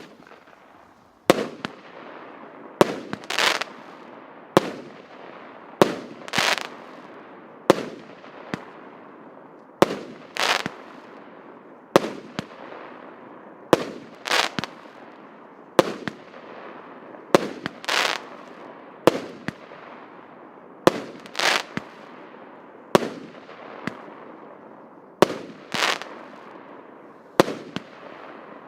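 "Barsik i Murzik" 16-shot consumer firework cake firing its shots one after another, about every one and a half to two seconds. Most shots are a launch bang followed about half a second later by the burst, with a hiss that fades after each one.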